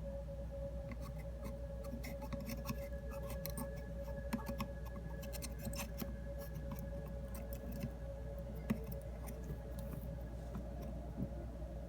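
Scattered light clicks and small scrapes of metal hand tools, irregular, over a steady hum.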